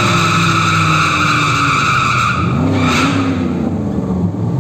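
Fifth-generation Chevrolet Camaro drifting: its tyres squeal in a loud, steady, high-pitched screech that fades out about two and a half seconds in. A short second squeal comes about three seconds in, with the engine revving up and back down underneath.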